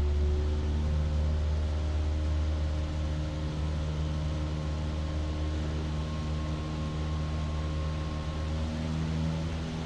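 Light aircraft's piston engine and propeller droning steadily in the cockpit, a deep hum with a few steady tones that shift slightly about a second in as the power setting changes.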